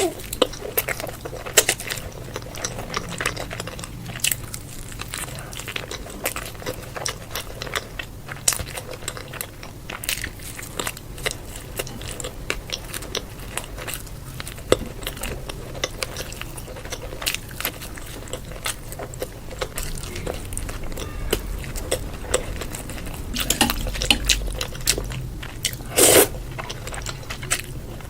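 A person biting and chewing food close to the microphone: an irregular run of crunches and wet mouth clicks, with one louder crunch near the end.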